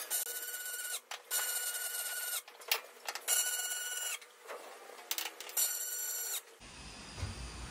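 Welding arc on aluminium seam welds, struck in four runs of about a second each with short pauses between, each run a steady high-pitched buzz.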